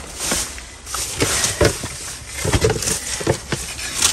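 Plastic bags, styrofoam and packaging rustling and crinkling as a gloved hand rummages through trash, with several irregular knocks.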